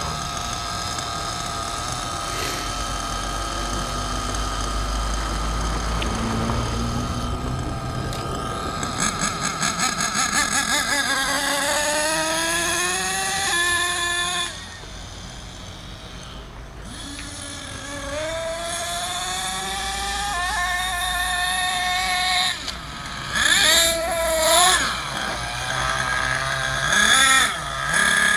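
The .28-size nitro engine of a Thunder Tiger MTA-4 radio-controlled monster truck runs at a high-pitched buzz, revving up and down in pitch as the truck accelerates and slows. It drops back quieter partway through, then gives several sharp, loud revs near the end.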